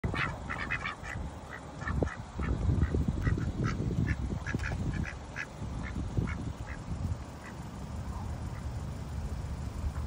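A flock of domestic ducks and white geese calling: many short quacks and honks, several a second, thinning out after about seven seconds, over a low rumble.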